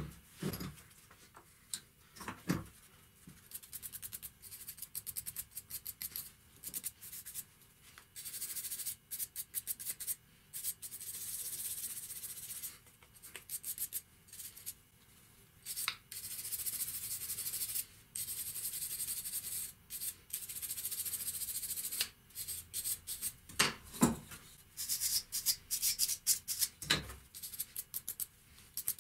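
Small wire brush scrubbing rust off the parts of a steel hand vise, in quick back-and-forth scratchy strokes that sometimes run on for several seconds. A few sharp knocks come from the metal parts set against the wooden floor, near the start, after about two and a half seconds, and twice near the end.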